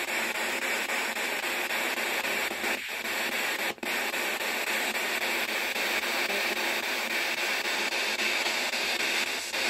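P-SB11-ANC ghost box sweeping the radio band, giving a steady hiss of static through a small external speaker, with a brief break a little under four seconds in.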